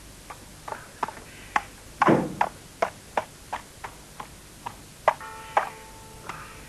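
A run of sharp knocks, about two to three a second, with a heavier thud about two seconds in. A short steady tone sounds briefly near the end.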